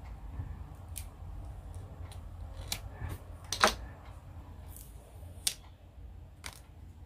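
Thin plastic screen-protector film and its backing being peeled and handled, giving a handful of short, sharp crinkles and crackles, the loudest a little past the middle.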